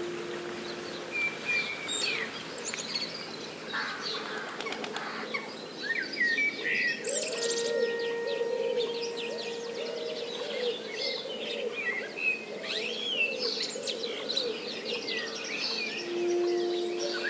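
Several wild birds chirping and singing in quick high phrases, with some whistled calls that rise and fall. Under them run soft, held low notes.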